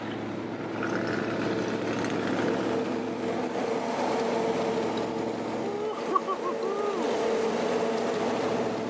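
Steady drone of vehicles at highway speed: engine and tire hum with wind noise, taken from a moving car running alongside a Mercury Grand Marquis on large mud-terrain tires. A short warbling chirp cuts in about six seconds in.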